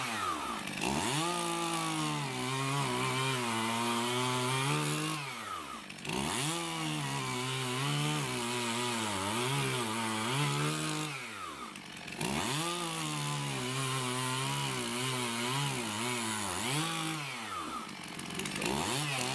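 Chainsaw cutting through boards on a wooden pallet stack, held at high speed in three long cuts. It drops back briefly about six seconds in, again about twelve seconds in, and near the end, then picks up again each time.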